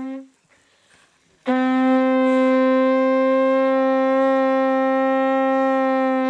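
Conch shell trumpet blown by a Buddhist monk: one long blast cuts off just after the start, and after a pause of about a second for breath a second long blast is held on one steady note. It is the call to prayer and communal breakfast.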